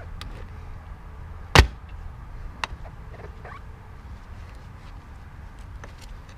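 Hand tools working on a small safe: one sharp bang about one and a half seconds in and a lighter knock about a second later, among small clicks and taps over a low steady rumble.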